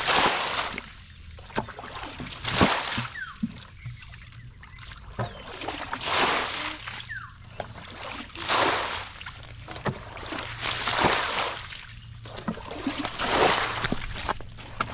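Muddy water bailed out of a shallow ditch with a plastic bucket, each bucketful thrown out in a splash, about six times at intervals of two to three seconds, with scooping and sloshing between.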